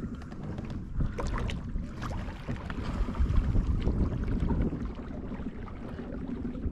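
Low rumbling wind and water noise around a fishing kayak on open water, swelling a little about three to four seconds in, with a few faint knocks.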